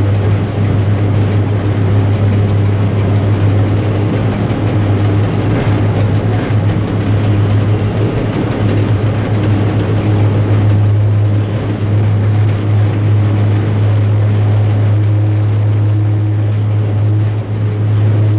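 Diesel engine of an M62 locomotive running steadily with a strong low hum, heard from inside the cab while it hauls a loaded freight train.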